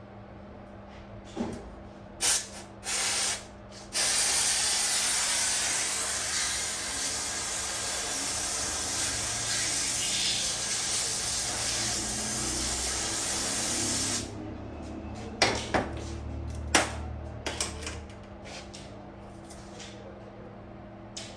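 Two short bursts of pressurised spray, then a steady hiss lasting about ten seconds that cuts off suddenly, during cleaning of a removed diesel injector. A few sharp clicks follow.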